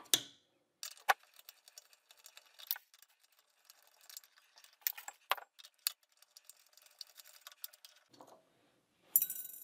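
Phillips screwdriver working small screws out of a telescope focuser's metal retaining ring: scattered light metallic clicks and ticks, with a brighter clink near the end.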